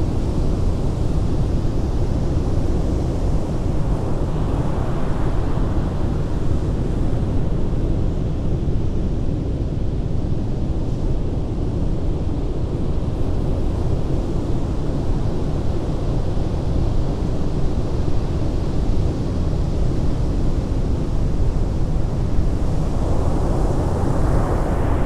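Heavy ocean surf on a beach: a steady low rumble, with a wave swelling and washing in about five seconds in and another near the end.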